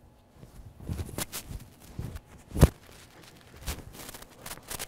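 Hoodie fabric rustling and brushing while it is pulled on over the head, in a string of short, irregular scuffs, the loudest about two and a half seconds in.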